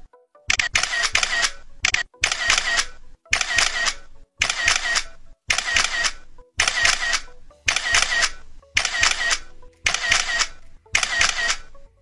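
Camera shutter sounds repeating about once a second, each a short burst of several clicks.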